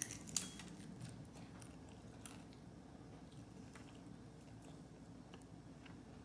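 Faint crunching and chewing on a crisp fried shrimp egg roll: one sharp crunch about half a second in, then a few scattered soft crackles over a low steady hum.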